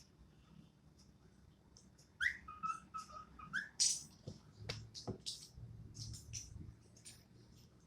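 Cockatiel giving a short whistled call of a few gliding and held notes about two seconds in, among many short, scratchy rustles.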